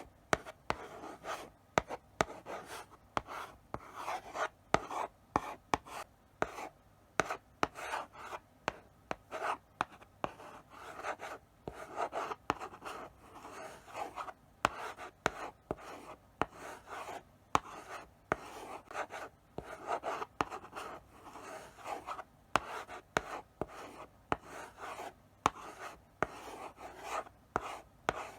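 Chalk writing slowly on a blackboard: a run of short scratchy strokes, punctuated by sharp taps as the chalk meets the board at the start of each stroke.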